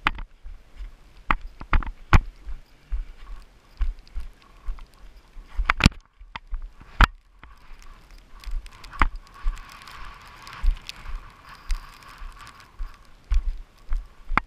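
Footsteps over rock with camera handling noise: irregular clicks and knocks, several a second, over low thumps, with a brief lull about six seconds in.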